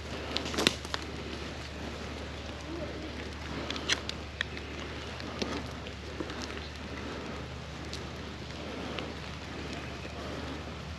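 Steady rain falling, an even hiss with scattered sharp ticks, the loudest about a second in and again near four seconds.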